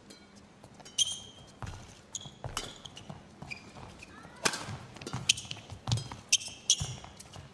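Badminton singles rally: sharp racket strikes on the shuttlecock every second or so, with high squeaks of court shoes on the floor and the players' footfalls.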